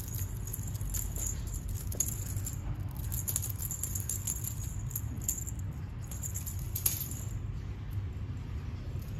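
Cat teaser wand toy jingling and rattling in quick, irregular bursts as a kitten bats at its dangling metal charm. There are sharper clicks about two seconds in and again near seven seconds, over a steady low hum.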